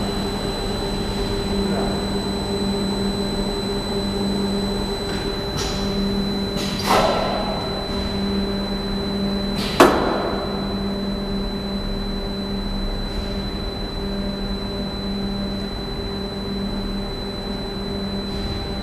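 Valve-bag vacuum packing machine running through a zinc oxide filling cycle: a steady mechanical hum that drops out briefly now and then, with a constant high whine. A short hiss comes about seven seconds in, and a single sharp clack near ten seconds.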